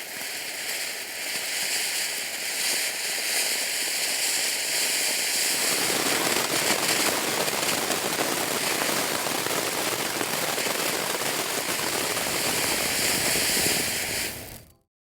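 Firework fountain spraying sparks, a dense crackling hiss that grows fuller about five and a half seconds in and then cuts off sharply near the end.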